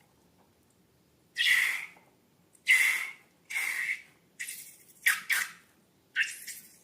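Slime being squeezed and squished by hand, in six short bursts of under a second each, separated by brief pauses.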